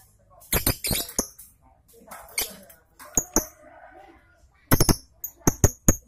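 Lovebirds moving about in a wire birdcage: sharp metallic clicks and rattles of the cage wire and perch. They come in small clusters, then a quick run of clinks over the last second or so.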